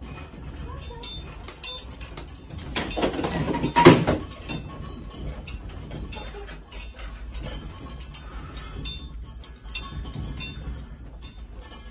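Rattling and clinking of loose objects over a steady low rumble as a building shakes in an earthquake. A louder rush of noise ends in a sharp knock about four seconds in.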